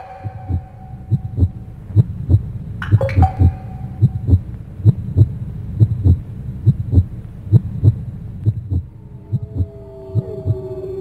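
Heartbeat sound effect: low double thumps about once a second over a steady low rumble. Two sharp ringing strikes come at the start and again about three seconds in. Drawn-out gliding tones come in near the end.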